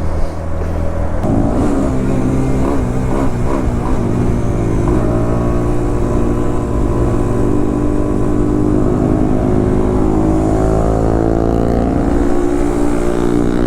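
Single-cylinder Bajaj Pulsar NS motorcycle engine under way, revving up and down a few times, then pulling steadily with a slowly rising pitch as it accelerates.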